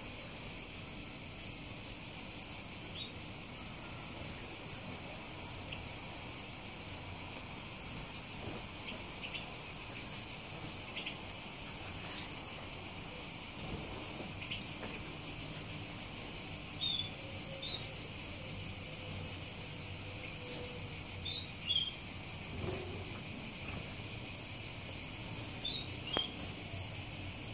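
Steady, unbroken high-pitched drone of an insect chorus, with a few short, faint bird chirps now and then from the caged finches.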